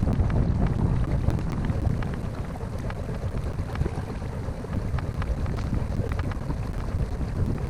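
Wind rumbling on the microphone on a kayak, with many small water slaps and splashes ticking through it.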